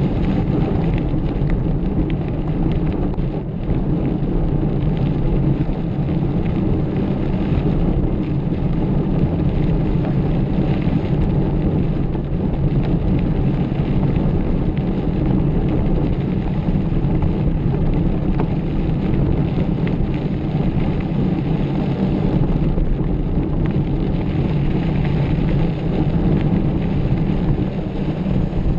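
Steady low rumble of wind buffeting the microphone of a camera carried on a mountain bike while it is ridden.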